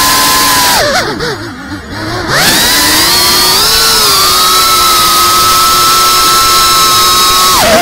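FPV quadcopter's motors and propellers whining at a steady high pitch. About a second in the throttle is cut: the whine slides down and quietens, then around two and a half seconds it climbs sharply back to a slightly higher steady whine, dropping away again at the very end.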